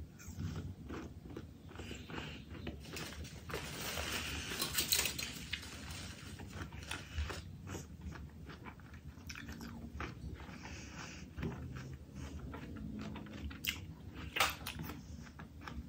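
Close-miked eating sounds: a person biting and chewing food, with wet mouth clicks and crunchy crackles, busiest about four to five seconds in.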